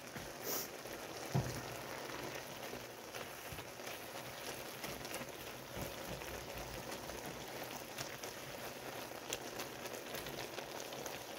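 Diced chicken, onion and bell pepper sizzling steadily in a frying pan, with a spatula stirring and scraping through it now and then in faint clicks.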